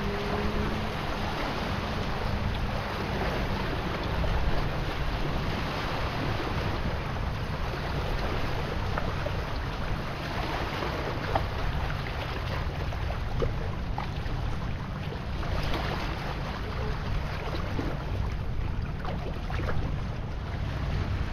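Small sea waves washing and lapping over shoreline rocks, with scattered little splashes and trickles. Under them runs a steady low rumble of wind on the microphone.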